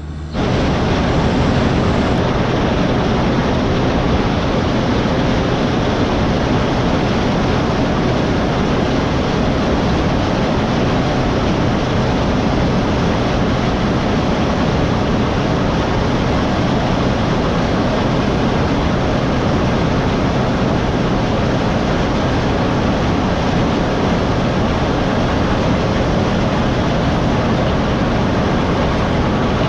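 Heavy farm machinery running steadily at harvest, a constant engine drone with a dense noisy wash over it.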